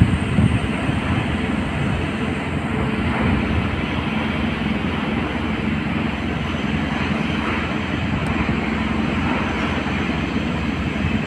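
Truck engine running and the cab shaking and rattling while driving over a rough quarry haul road, heard from inside the cab. A steady, unbroken rumble.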